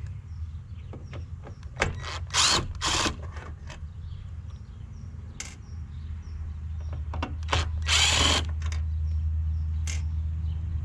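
Cordless drill/driver running in two short bursts, about two seconds in and again about eight seconds in, driving the screws of a replacement turn signal side marker; the first burst has a rising whine. Light clicks and handling knocks fall between them over a steady low hum.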